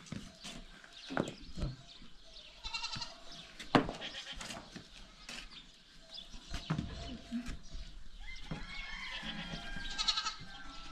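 Goats bleating with a quavering call, once about three seconds in and again near the end, with a few sharp knocks and scuffs between them.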